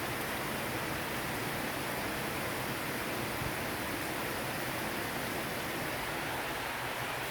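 Heavy rain falling steadily in a downpour, a constant, even hiss with no let-up.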